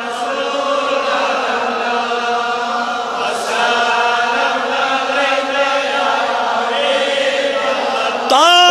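Unaccompanied chanted refrain in long held notes, with several voices overlapping and no instruments. Near the end a solo male voice comes in louder, singing the next line of the Kashmiri naat.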